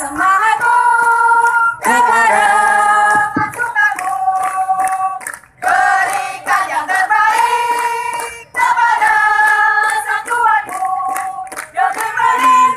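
A group of voices singing a chant together, in sung phrases of three to four seconds with short breaks between them.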